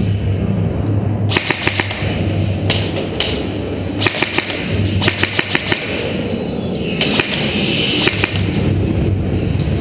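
Airsoft guns firing in short, rapid volleys of sharp cracks, a cluster every second or so, over a steady low rumble.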